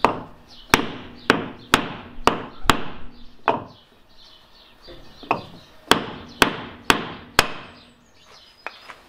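Hammer blows tapping a drain-plug fitting into a hole drilled through a boat's transom: sharp strikes about twice a second, each with a short ring. There are two runs of five or six blows with a pause of about a second and a half between them.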